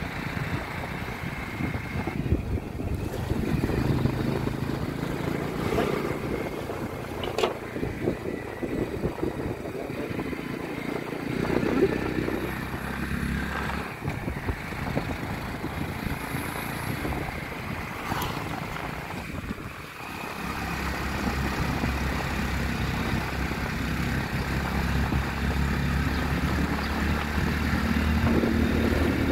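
Small commuter motorcycle's single-cylinder engine running while being ridden, its note shifting with the throttle. The engine eases off briefly about two-thirds of the way through, then pulls again on a steadier low note.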